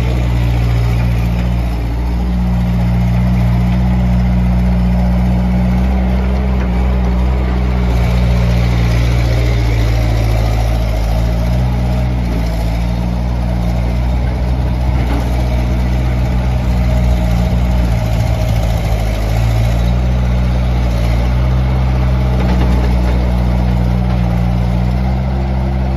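2005 Bobcat S150 skid steer's 46 hp Kubota diesel engine running steadily, its pitch dipping and rising a little now and then.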